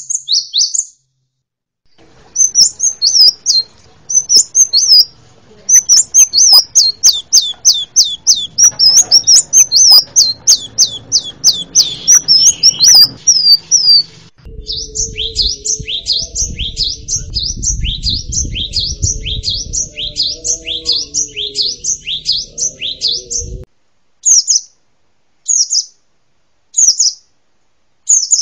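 Songbird song from a mix of canary, cinereous tit (gelatik batu) and sunbird (kolibri) recordings: fast runs of high chirps and sweeping notes. About 14 seconds in, it switches abruptly to another run of chirps over a low background rumble. Near the end there are short separate phrases with pauses between them.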